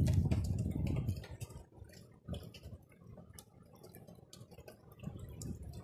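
Falling rain mixed with snow: many scattered, irregular drops ticking sharply close to the microphone. A low rumble is loudest in the first second and builds again near the end.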